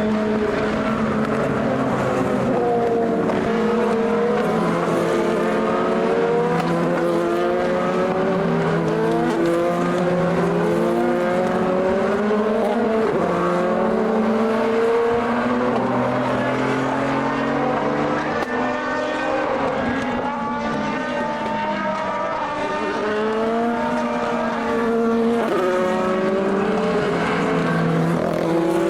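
Several sports-prototype and GT race cars running on the track at once, their engines accelerating through the gears: overlapping engine notes climb in pitch and drop sharply at each upshift, a few seconds apart.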